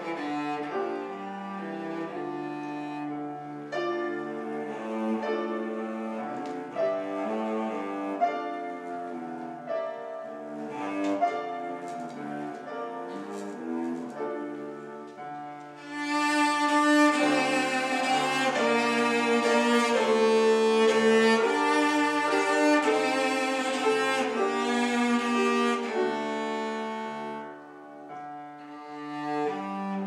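Cello played with a bow: a melody of held notes with vibrato. The music swells louder about halfway through and eases off again near the end.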